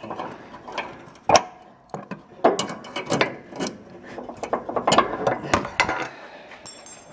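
Pliers working the metal deck-hanger pins out of a lawn tractor's mower deck: a run of metal clicks, rattles and clacks, with one sharp click a little over a second in and a busy stretch of clatter in the middle.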